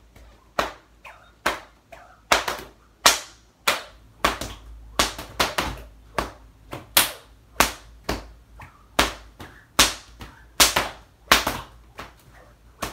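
A short braided snakewhip, about two feet long, cracked over and over with its popper: about twenty sharp cracks at nearly two a second, some louder than others.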